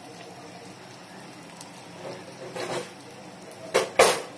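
Oil crackling faintly in a frying pan of shallots, dried red chillies and urad dal, with a brief rustle about two seconds in and two sharp knocks near the end, the loudest sounds.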